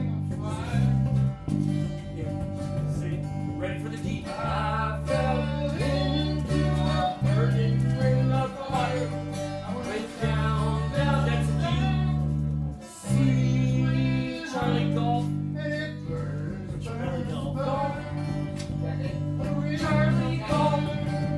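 Acoustic string band playing a country-style tune: strummed acoustic guitars over deep, steadily changing bass notes.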